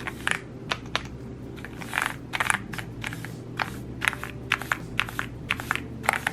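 A small cleaning brush sweeping over a keyboard, its bristles scratching across the keycaps in quick irregular strokes with light clicks of plastic.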